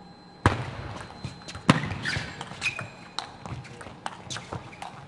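Table tennis rally: the celluloid ball clicks sharply and irregularly off bats and table, with a few short squeaks from players' shoes on the court floor. The sound cuts in suddenly about half a second in.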